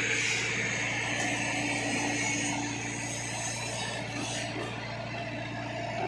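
Diesel engines of a Tata Hitachi hydraulic excavator and a Swaraj tractor running steadily with a constant low drone.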